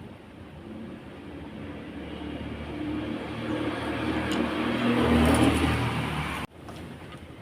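Miyako electric blender motor running, growing steadily louder for several seconds before cutting off suddenly near the end.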